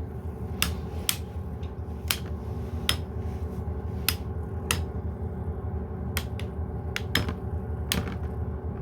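Two 3D-printed Beyblade spinning tops whirring steadily in a stadium and clashing with sharp clicks about once or twice a second.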